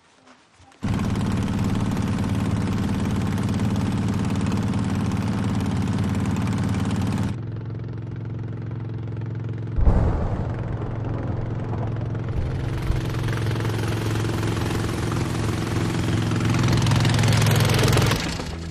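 Boat engine running steadily. It comes in abruptly about a second in, drops a little in level at about seven seconds, and gives a sharp knock near ten seconds. It grows louder toward the end, then falls away.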